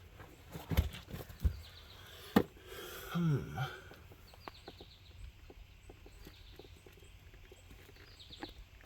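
A few sharp knocks and clicks of tools on the car's front hub assembly as it is being worked loose, with a short low falling sound about three seconds in and quieter ticking after.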